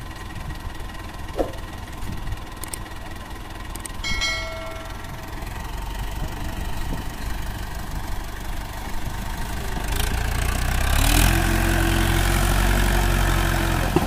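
Mahindra 575 DI tractor's diesel engine idling, then revved up and held at higher speed from about eleven seconds in, with the tractor's rear wheels bogged in heavy sand.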